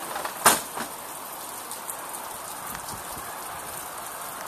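Steady hiss of heavy rain, with a sharp click about half a second in and a fainter one shortly after.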